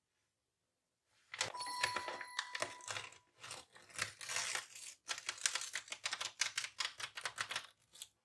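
Paper crinkling and crackling as the tear strip of a homemade paper blind bag is pulled open and the paper unfolded. A thin steady squeal runs under the first couple of seconds of the crinkling.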